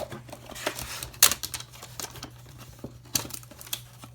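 Camera packaging being worked loose by hand: scattered clicks and rustling, with a sharp snap about a second in and another cluster of clicks about three seconds in.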